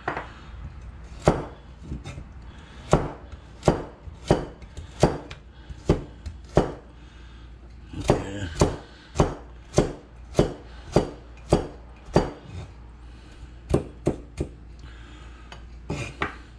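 Kitchen knife slicing vegetables on a cutting board: a steady run of sharp knocks, about two a second, as each slice goes through and hits the board.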